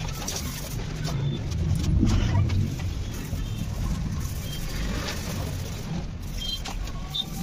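Steady low rumble of road traffic, with faint scratching of sandpaper rubbed by hand over a scooter's body panel.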